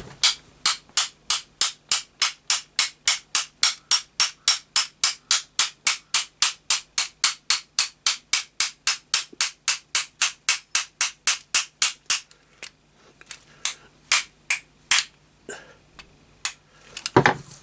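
Quick, even taps of a soft-faced mallet on the end of a drill chuck, about four a second for some twelve seconds, then a few slower, scattered taps. The mallet is driving a tight-fitting spindle through the bearings of a spindle housing.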